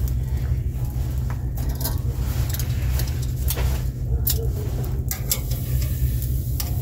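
Metal grill tongs clicking and clacking against a charcoal grill's steel grate as steaks are turned, a few sharp clicks at irregular moments. Under it runs a steady low rumble.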